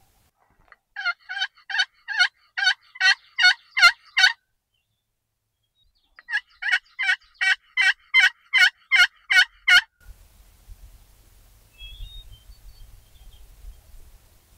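Wild turkey yelping: two runs of about ten evenly spaced yelps, roughly two and a half a second, the first run growing louder.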